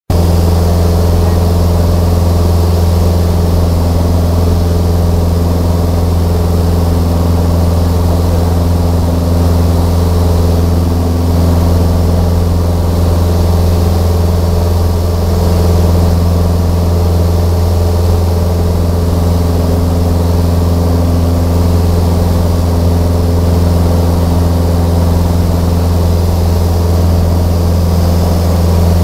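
Light aircraft's engine and propeller droning steadily in cruise, a loud, unchanging low drone heard from inside the cabin.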